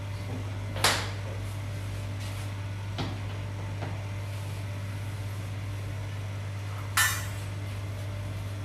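Steady low hum with a few brief handling noises: a short knock about a second in, a faint tick near three seconds, and a short rustle near seven seconds.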